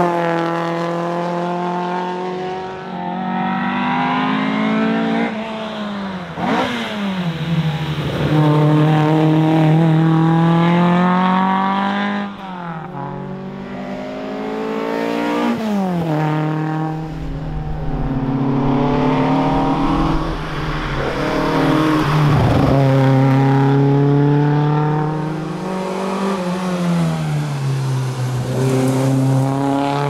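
BMW 2002's four-cylinder engine at high revs under hard acceleration, climbing in pitch through each gear and dropping sharply at each gear change. Several times the car goes past and the pitch sweeps down.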